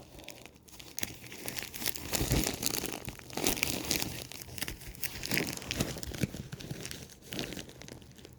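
Packaging being crinkled and torn open by hand, an irregular run of crackling and tearing.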